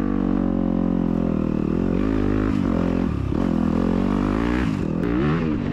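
Yamaha YZ250FX's 250 cc single-cylinder four-stroke engine running under throttle from on the bike. The revs hold steady for about two seconds, then drop and climb again a few times as the throttle is rolled off and back on.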